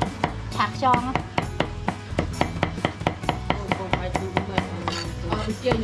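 Cleaver chopping on a thick chopping block, mincing garlic in quick repeated strokes, several a second, heard over background music.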